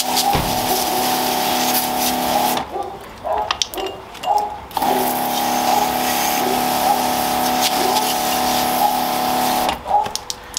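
Low-pressure washer's pump motor running with a steady hum while water sprays onto a bicycle; it stops for about two seconds near three seconds in, then starts again, and stops once more near the end.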